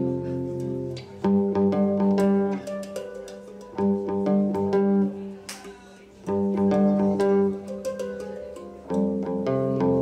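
Live hang drum and electric guitar music: a repeating phrase of ringing plucked and struck notes that starts again about every two and a half seconds.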